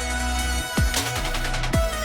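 Background electronic music with a steady thumping kick drum and sustained bass.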